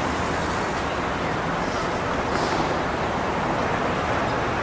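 Steady outdoor background noise, a continuous even wash with a low rumble.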